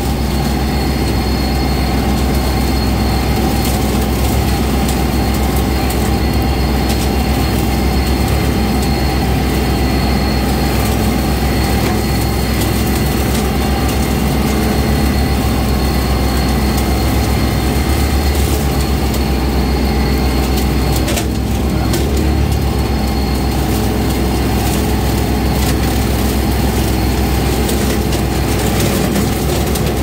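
Kubota compact tractor's diesel engine running steadily as the tractor drives through brush, heard close up from the driver's seat.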